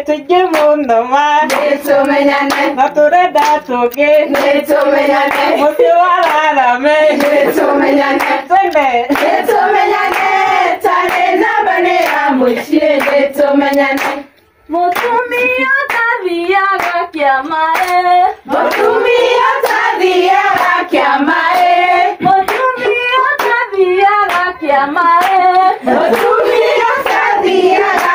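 A group of women singing a song together while clapping their hands in rhythm. Both stop for a moment about halfway through, then start again.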